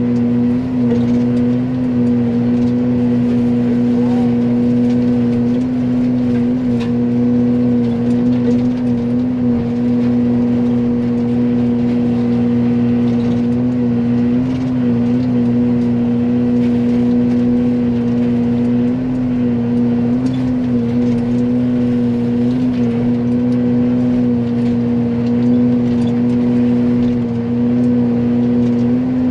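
Excavator running at high throttle and driving a Fecon forestry mulcher head: a loud, steady drone with a strong constant hum, its pitch dipping slightly now and then as the head bites into brush.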